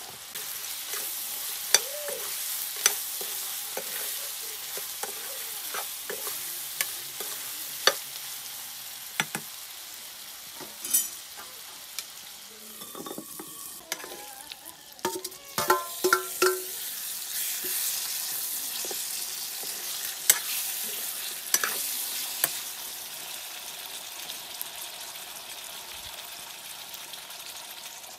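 Pork curry sizzling in a steel wok while a metal spoon stirs and scrapes it, with many sharp knocks of the spoon against the pan. About halfway through comes a quick run of ringing metallic clinks.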